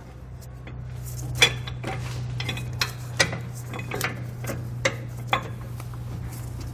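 Irregular metal clinks and scrapes as a steel bail clamp (U-bolt) is worked around a leaf spring pack and through the holes of an air spring mounting bracket, over a steady low hum.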